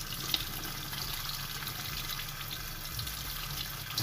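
Cold tap water running in a steady stream over a small vape coil held under it, splashing into a stainless steel sink.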